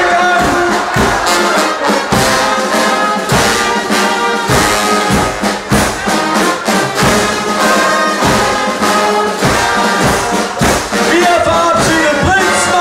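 Loud carnival music led by brass, trumpets and trombones, over a steady beat of about two strokes a second, picked up on a mobile phone's microphone.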